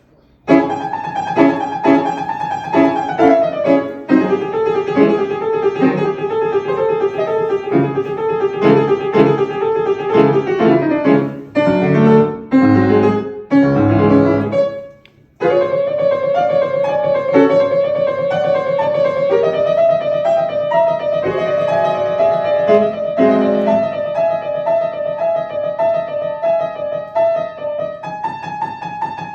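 Piano playing a light melody over a repeated accompaniment, moving into a lower passage in the middle and breaking off briefly about fifteen seconds in before carrying on.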